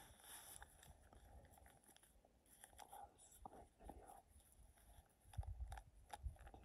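Near silence, with faint scattered clicks and a brief low rumble near the end.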